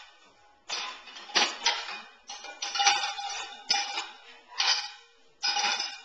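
Dishes and plates clinking and clattering as they are loaded into a dishwasher rack: a string of about eight sharp knocks at uneven intervals, each ringing on briefly.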